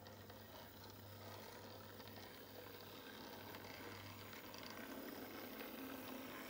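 Faint running of an OO gauge model train, its motor and wheels on the track, growing louder from about halfway through as it approaches, over a steady low hum.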